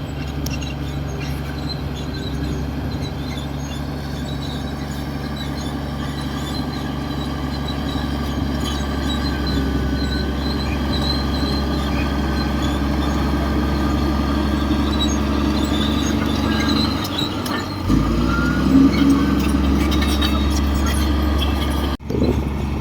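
Komatsu D58 bulldozer's diesel engine running steadily under work, its note shifting and growing slightly louder about three quarters of the way through, then briefly cutting out near the end.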